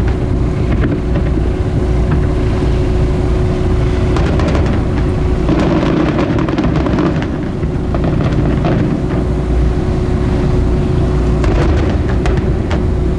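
Aerial fireworks booming and crackling in quick succession, over the steady hum and rumble of a boat's engine.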